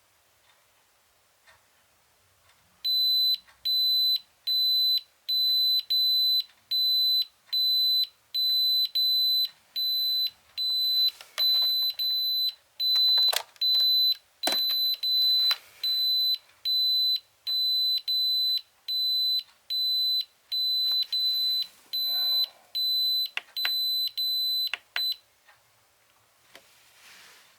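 Portable power station's alarm beeping: a steady high-pitched beep repeating a little more than once a second for about 22 seconds, then stopping, with a few clicks. This is the overload warning after the hair dryer's hot setting drew more than the 500 W output and the safety cut-out stopped it.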